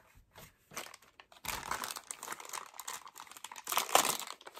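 Clear plastic bag crinkling and rustling as it is handled, starting about a second and a half in and loudest near the end. Before it, a few soft knocks.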